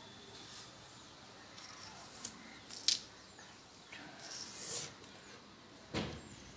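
Sharp fingernail clicks of nits being crushed between the thumbnails: a few spaced clicks, the loudest about three seconds in and another near the end, with a short rustle of fingers working through hair in between.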